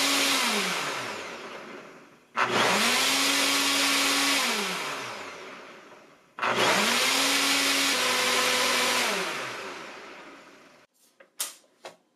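NutriBullet Blender Combo's 1200-watt motor blending frozen fruit and milk in the 32-ounce cup on its Extract program, running in bursts of about four seconds: each time it winds up to speed, holds and spins down, then starts again, about two and a half and six and a half seconds in. A few clicks near the end as the cup is gripped on the base.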